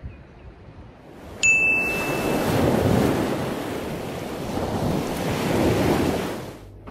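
Ocean surf washing in and swelling twice, starting about a second and a half in and fading near the end. At its start there is a short bright ding lasting about a second.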